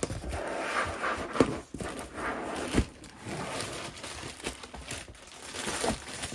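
Plastic bag crinkling and cardboard rustling as a boxed battery is lifted out of its packaging, with a few dull knocks along the way.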